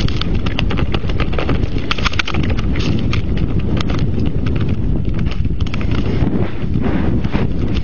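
A low, rushing rumble of wind and machine noise on a snowmobile's on-board camera microphone, broken by rapid, irregular knocks as the machine bounces down a steep snow slope.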